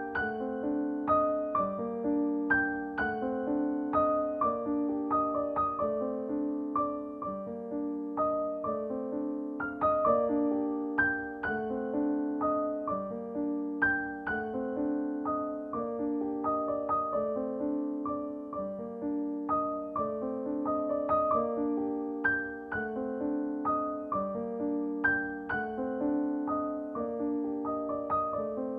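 Background piano music: a gentle, repeating pattern of notes over sustained lower chords.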